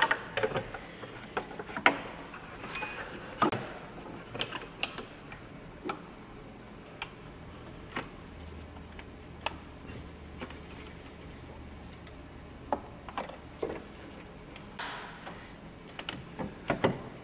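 Scattered clicks and knocks of a ratchet wrench and metal engine parts as the exhaust-cam VVT solenoid is unbolted and worked loose on a Chevy 4.2-litre straight-six.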